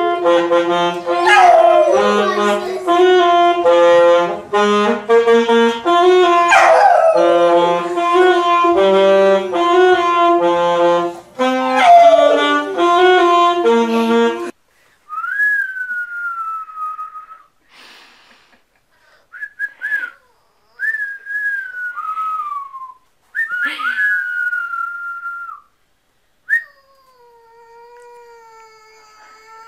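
A young boxer dog howling along to a live saxophone melody, its long howls sliding down in pitch across the notes, three times. After the saxophone stops, boxer puppy howls come in several short, high, falling cries, then one longer, lower howl that bends down at its end.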